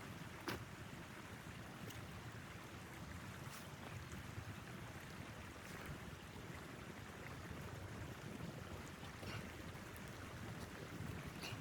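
Blizzard wind rushing steadily against a tent, with a few sharp clicks.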